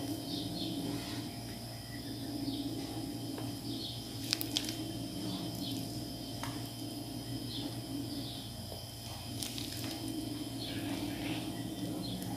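A plastic piping bag being squeezed and handled to pipe cream, with a few light clicks and crinkles, over a steady low hum and faint high chirping in the background.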